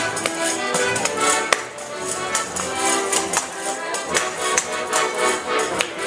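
Portuguese student tuna band playing traditional music: accordion and strummed acoustic guitar, with a tambourine struck in a quick, steady beat.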